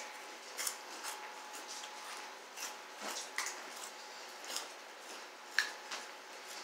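Scattered light clicks and rustles of fingers picking crunchy cheese puffs out of plastic bowls, and the puffs being eaten, with the sharpest click a little before the end. A faint steady hum runs underneath.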